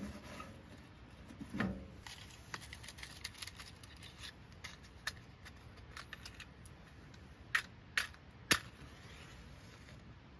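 Small objects being handled: a soft knock, then a scattered run of light clicks and taps, with three sharper clicks about half a second apart about three quarters of the way through.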